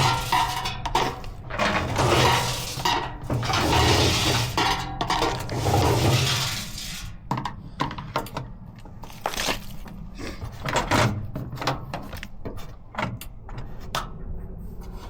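Old Hotpoint washing machine running with hard objects clattering and crashing inside it. The racket is dense for the first several seconds, then thins out to scattered knocks.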